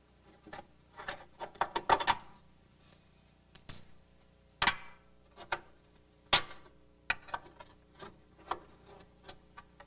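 Metal clanks and knocks as a GM double-A-arm front suspension's lower control arm, its two attaching bolts out, is worked free of its frame mounts by hand. There is a quick cluster of knocks in the first two seconds, two sharp clanks near the middle, then lighter taps.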